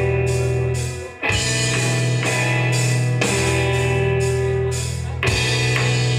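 A live punk rock band plays an instrumental passage: electric guitar chords ring over drums with steady cymbal hits, and the band stops briefly about a second in before coming back in.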